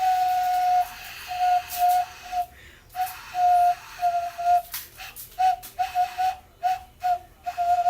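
Carrot ocarina blown on one pitch, a long note followed by a string of short breathy toots, all at the same pitch.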